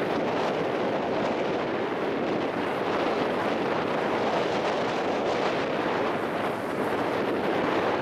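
Steady wind buffeting the microphone aboard a boat under way, mixed with the rush of water along the hull.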